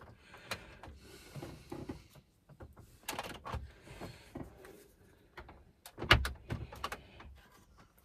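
Red plastic trim tool clicking and scraping against the BMW X5 E70's centre console trim as it is worked in around the handbrake switch panel. The sound is scattered clicks and knocks, with the loudest cluster about six seconds in.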